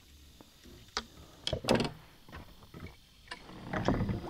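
Scattered clicks and knocks of gear being handled against a plastic kayak as a fish measuring board is fetched out, with a busier clatter near the end.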